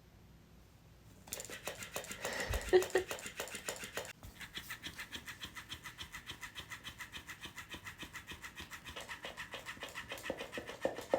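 Motion-activated flopping fish cat toy switching on about a second in: its small motor whines as the tail flaps and slaps about five times a second, with a thump early on, a brief break just after four seconds, and louder slaps near the end before it stops.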